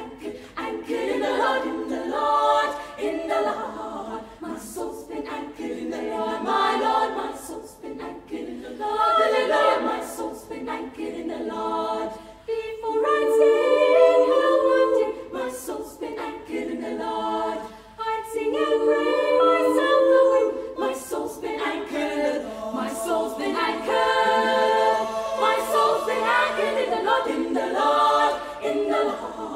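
A girls' choir singing a cappella in high voices with no low parts, in long sustained phrases that break off briefly about twelve and eighteen seconds in.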